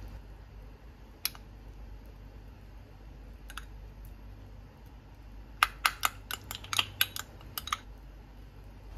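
A plastic rice paddle clicking against the cookware as butter is scraped in and cut through cooked rice: a single click about a second in, another a couple of seconds later, then a quick run of about a dozen clicks in the second half. A low steady hum sits underneath.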